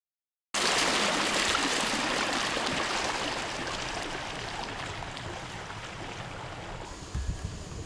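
Water rushing and splashing along the hull of a canoe moving on a river. It starts abruptly about half a second in and slowly fades, with a few low bumps near the end.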